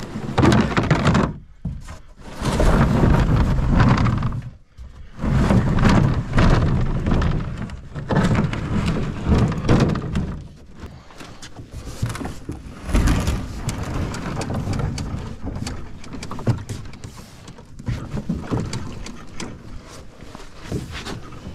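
Canoe hull scraping and knocking as it is slid off the bank into the water and climbed into. Heavy irregular scraping and hollow thunks fill the first ten seconds, then lighter knocks and rattles follow.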